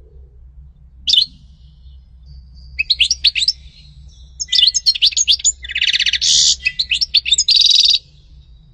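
European goldfinch singing: a short call about a second in, then quick bursts of high twittering that run into a long, rapid phrase with buzzy trills, which stops abruptly near the end.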